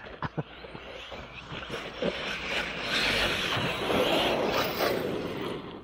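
Electric 1/8-scale RC trucks running on a dirt track: motor whine and tyres on dirt, growing louder about three seconds in, after a few sharp clicks at the start.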